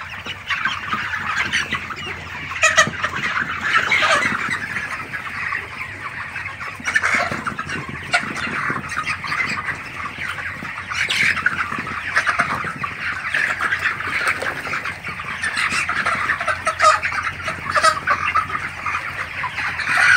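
A large, crowded flock of white chickens calling all at once: a steady, dense chatter of clucks and peeps, with a few louder squawks standing out.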